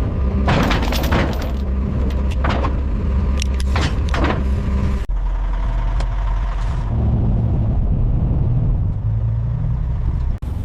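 A motor vehicle's engine running steadily, with clanks and knocks of metal over it in the first few seconds; about five seconds in it cuts abruptly to a steadier low engine rumble.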